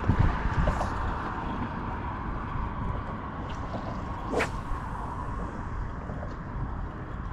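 A spinning rod being cast, a quick swish near the start, over steady wind on the microphone; a second brief rising swish about four seconds in.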